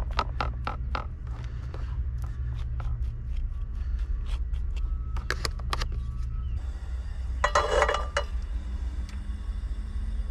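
Palette knife scraping butter across bread: a run of short scraping strokes over a steady low rumble. A little past halfway comes a loud rasping burst of under a second, as a portable gas stove is lit under a frying pan.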